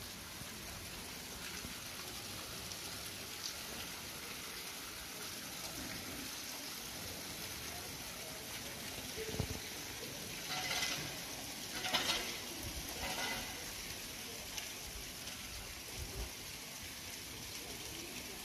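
Steady outdoor background hiss, with a few short, louder sounds about ten to thirteen seconds in.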